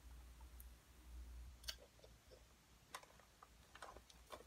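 Faint, scattered clicks and crackles of someone eating honey popcorn from a snack bag, about four sharp ticks spread across a few seconds over a low steady hum.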